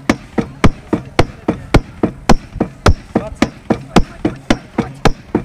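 Sledgehammer striking metal in a steady rhythm, a hard blow about every half second with lighter knocks in between. This is a firefighter competitor hammering through the TFA sledgehammer task.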